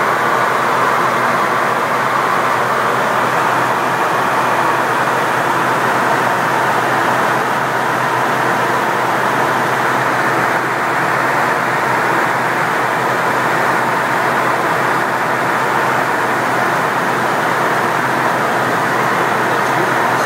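Steady flight-deck noise of a KC-135 Stratotanker in flight: an even rush of airflow and engine noise with a faint low hum underneath, unchanging throughout.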